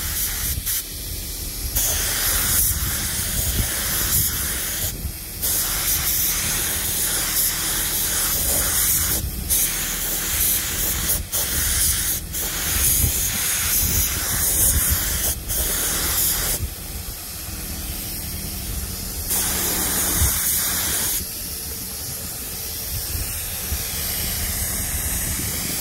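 Compressed-air paint spray gun hissing as it sprays paint onto flat aluminum plates, in long bursts that cut off briefly each time the trigger is released.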